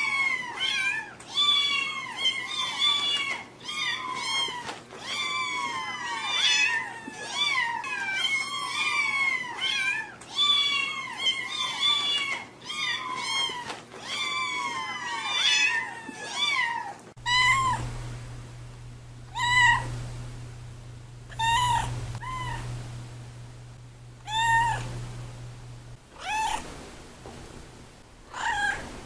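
Cats meowing: many high meows overlap in quick succession, then after about 17 seconds single meows come roughly every two seconds over a low hum.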